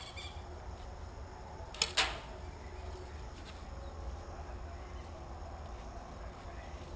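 Two sharp snaps about a fifth of a second apart, about two seconds in, the second louder: an airsoft gun firing two shots.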